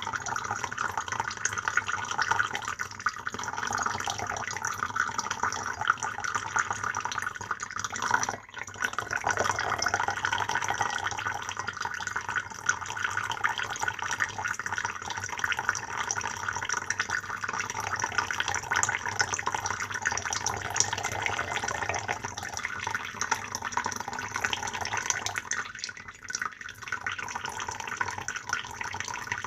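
Water pouring in a steady stream, briefly broken about eight seconds in and dipping again near the end.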